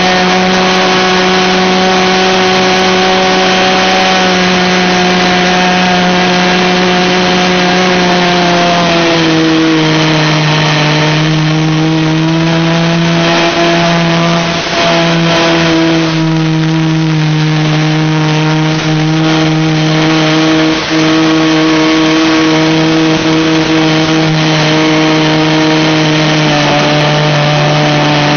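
Nitro-fuelled .40 model airplane engine running steadily in flight. Its pitch drops slightly about nine seconds in and then holds.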